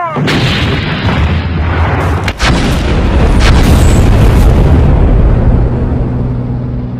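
Artillery gun firing: a sudden loud blast followed by a long rolling rumble, with two sharp cracks about two and a half and three and a half seconds in. The rumble fades somewhat near the end.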